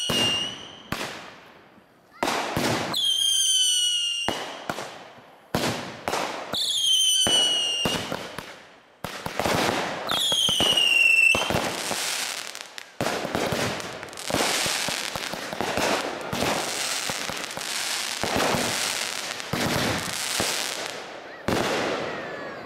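Aerial fireworks going off: about four shrill whistles, each falling in pitch, with sharp bangs between them. From about halfway through, a rapid, continuous barrage of bangs and crackling bursts.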